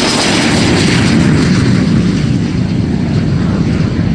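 Jet fighter engine sound effect: a loud, steady jet roar, with a faint high whine fading out in the first second or so.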